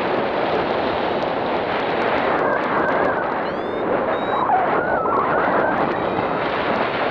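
Steady rushing wind buffeting the microphone of a camera carried by a paraglider pilot in flight.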